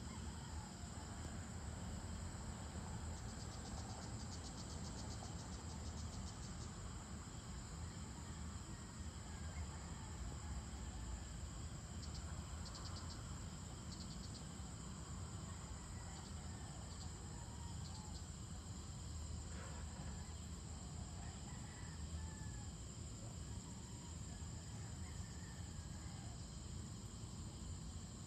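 Dusk insect chorus: a steady high-pitched trill, joined by a faster pulsing insect call about three to seven seconds in and again around twelve to fourteen seconds in. Underneath runs a low steady rumble, with a few faint bird chirps later on.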